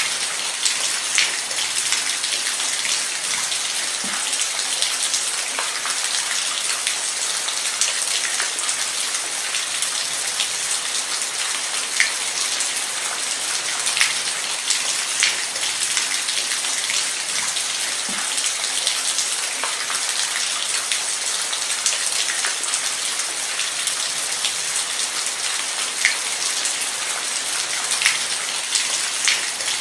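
Steady rain falling on a surface, a dense even hiss with scattered individual drops ticking sharply through it.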